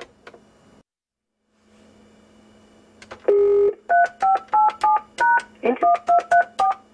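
Telephone keypad tones: one longer beep about three seconds in, then a quick run of about ten key presses, three to four a second, each a short two-note tone.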